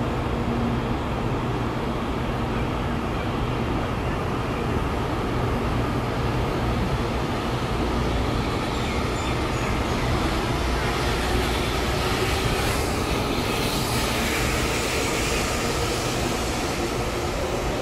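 Taiwan High Speed Rail 700T train pulling out of the station and gathering speed past the platform: a steady rumble and rush from the passing cars that grows brighter in the second half, with a faint whine slowly rising in pitch.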